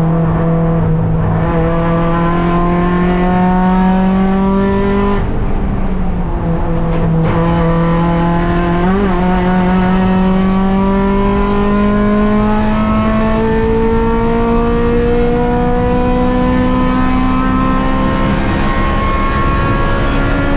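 Honda Civic Si's four-cylinder engine held at high revs on a track lap. Its pitch climbs steadily, drops once about five seconds in, jumps briefly around nine seconds, then rises slowly through a long pull.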